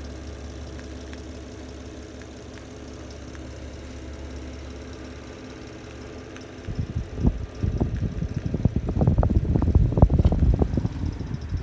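Antique cast-iron electric desk fan running, its motor giving a steady low hum. About seven seconds in, the fan's airflow starts blowing on the microphone, and loud irregular gusty rumbling takes over.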